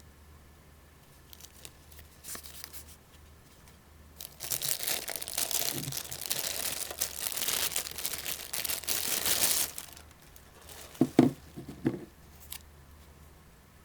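Plastic packaging crinkling and tearing for about five seconds as the alarm clock is unwrapped, followed by a few short knocks.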